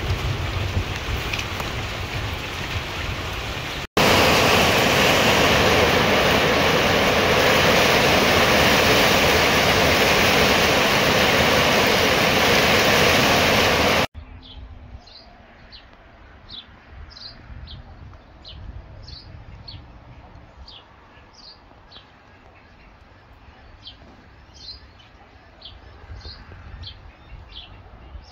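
Storm wind gusting on the microphone, then, about four seconds in, a loud, steady rush of storm noise that cuts off suddenly after about ten seconds. The quiet that follows holds small birds chirping, short high calls repeated irregularly.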